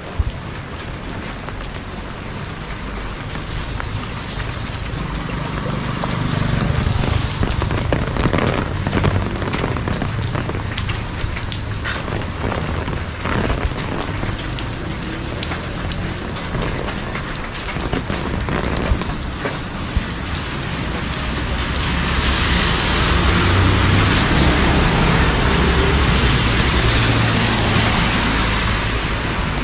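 Heavy rain pouring down steadily, with a constant low rumble underneath; the downpour grows louder about two-thirds of the way through.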